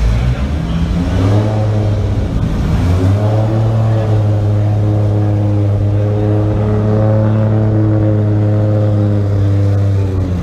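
Red fourth-generation Toyota Supra's engine and exhaust running at low speed as the car creeps past. It is a steady, deep drone that swells about a second in and rises a little in pitch around three seconds, then holds steady.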